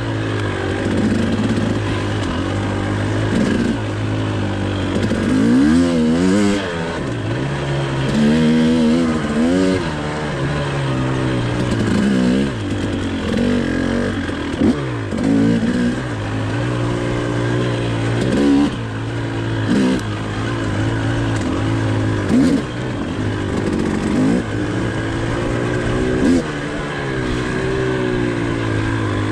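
Husqvarna TE 300i's 300cc two-stroke engine running under throttle, revving up and dropping back again and again as the rider rolls on and off, with a few sharp knocks along the way.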